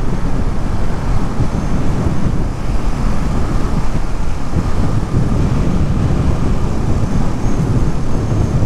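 A Ducati Monster motorcycle being ridden: the L-twin engine running under a steady rumble of wind on the microphone.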